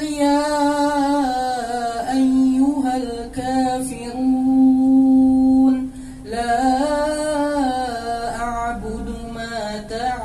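An imam reciting the Quran aloud in a slow, melodic chant, a single voice drawing out long held notes with short pauses between phrases.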